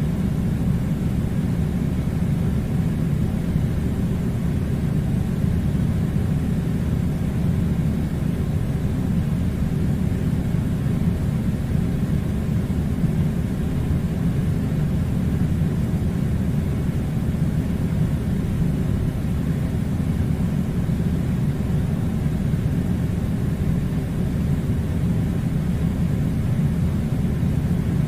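Air conditioner running: a steady, unchanging low rumble of rushing air.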